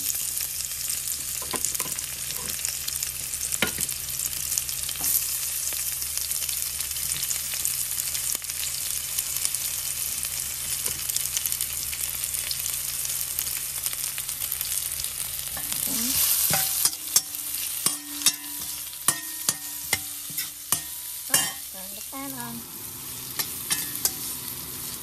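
Sliced shallots dropped into hot oil with fried garlic and chili in a stainless steel pot, sizzling steadily. In the last third a metal spoon stirs them, with sharp clanks and scrapes against the pot.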